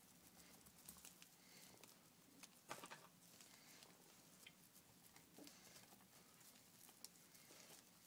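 Faint wet squelching and soft pats of raw minced beef being pressed by hand as the edges of a thick burger patty are sealed around its bacon-and-cheese filling, the clearest pat about three seconds in; otherwise near quiet.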